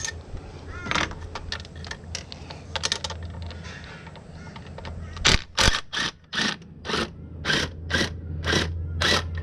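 Hand tool working the 10 mm bolts that hold an intake throttle body, with scattered metal clicks and scrapes. Over the last four seconds come about nine sharp clicking bursts at an even pace of roughly two a second.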